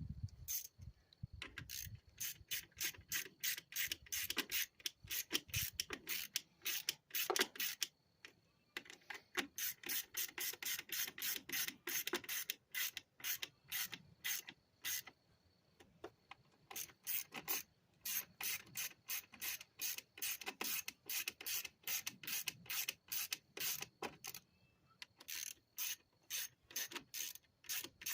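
Hand ratchet wrench clicking in long runs as bolts are turned down, with short pauses between runs.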